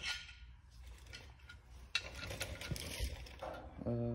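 Light clinks and rustling as a rectangular glass headlight is picked up and handled, with a soft knock about three seconds in.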